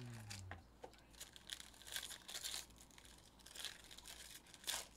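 Silvery foil wrapper of a trading-card pack being torn open and peeled off the cards, crinkling in a string of short crackles, the loudest near the end.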